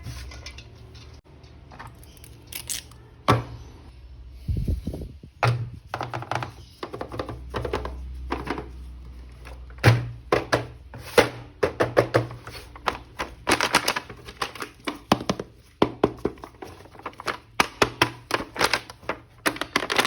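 Hard plastic action-figure pieces and packaging being handled: irregular clicks and knocks, coming thick and fast in the second half, with a few dull thuds about a quarter of the way in.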